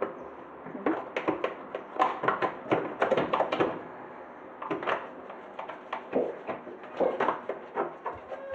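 Irregular light knocks and clicks of dishwasher parts being handled, coming in clusters with short pauses.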